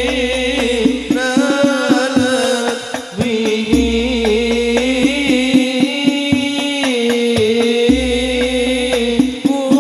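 Sholawat: a male voice singing a long, wavering Arabic devotional melody through a microphone and PA, over a steady beat of rebana frame drums in hadroh style. Deep bass swells come in and fade about every four seconds.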